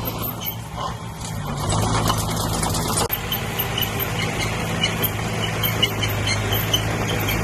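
Diesel engine of earthmoving machinery running steadily, getting louder about two seconds in.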